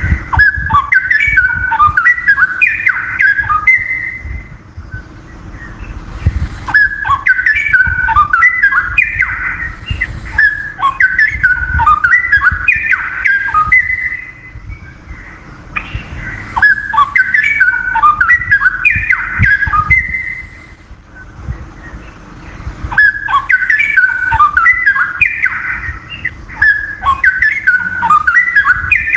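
Straw-headed bulbul (cucak rowo) singing loud, bubbling warbled phrases in four bouts of several seconds each, with short pauses between them.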